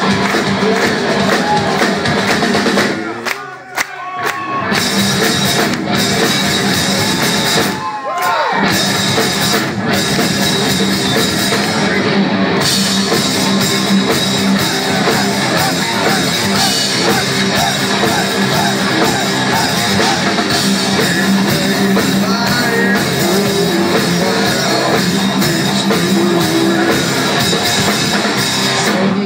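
Hard rock band playing live, with electric guitars, bass, a drum kit and a singer, loud and dense as heard from the crowd. The sound drops out briefly about three seconds in and again about eight seconds in.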